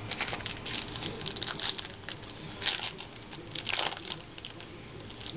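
Trading-card pack being opened and handled: irregular crinkling of the wrapper and rustling of cards, in quick uneven bursts.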